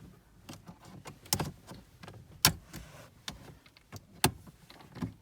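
Plastic dashboard trim around a 2007 Toyota Yaris's radio being pushed and worked loose by hand: a string of sharp clicks and knocks, three of them louder, spread across a few seconds.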